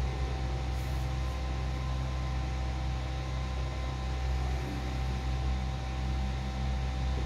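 Electric mini fan running steadily: a low motor hum with a faint steady whine over the rush of air.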